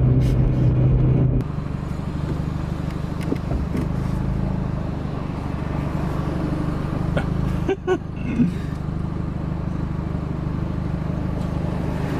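Steady low rumble of a car heard from inside its cabin, dropping suddenly in level about a second and a half in, with a brief break near eight seconds.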